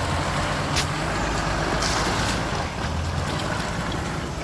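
Off-road 4x4 engine running steadily under load, with a brief hiss about two seconds in.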